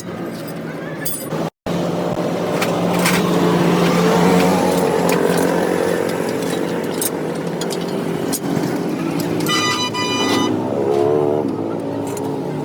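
A vehicle engine running steadily, with a short high-pitched beep or horn tone about ten seconds in.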